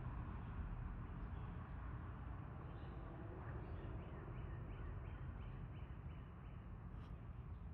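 A bird calling a run of short, evenly spaced notes, about three a second, over a steady low outdoor background.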